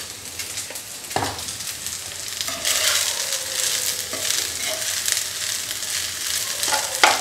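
Slotted steel spoon stirring and scraping basmati rice with mint in a non-stick pan on a gas flame, with light sizzling in the oil. A few sharp knocks, one about a second in and one near the end.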